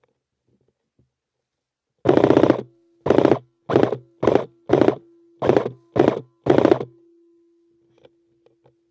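Airsoft M4 rifle firing eight short rapid-fire bursts in about five seconds, heard loud and close from the gun itself.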